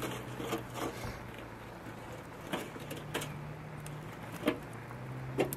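Scattered light clicks and knocks of bowls, pans and utensils being handled during food preparation, over a steady low hum.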